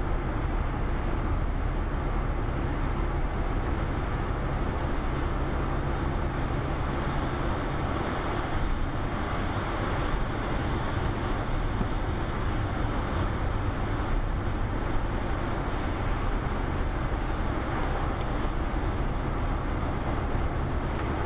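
Steady road and engine noise heard inside a car cruising on a highway: a low rumble with tyre hiss over it.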